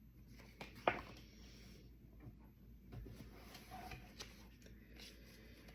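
Tarot cards being shuffled and handled, a faint rustle with a sharp snap about a second in and a few lighter taps later.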